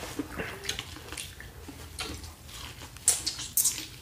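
Mouth sounds of eating sauce-soaked corn on the cob: wet chewing, sucking and lip smacks, with two louder wet smacks a little after three seconds in.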